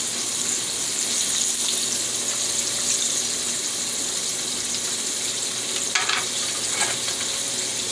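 Pot of metemgee cooking on the stove with a steady sizzling hiss.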